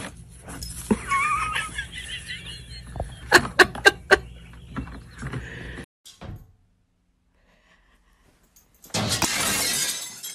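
Plastic bag crinkling and rustling as a dog moves with it over its head, with a few sharp crackles. Near the end comes a loud crash of a mirror hitting the floor and shattering, lasting about a second and a half.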